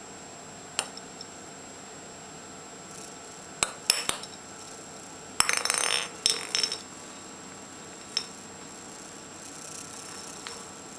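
Small metal ball toy on a string clinking and rattling as a kitten bats it about on a wooden parquet floor: a few single clinks, and a dense rattle about halfway through.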